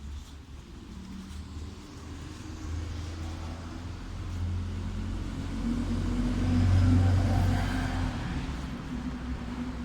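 A motor vehicle passing by in the street: its engine and tyre rumble grows louder, peaks about seven seconds in, then fades.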